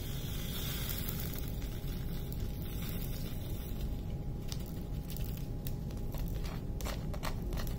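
Small resin diamond-painting drills sliding off a plastic drill tray into a plastic holder on a digital scale, a faint rattling hiss, then a few light clicks in the second half as the last drills clinging to the tray are knocked off.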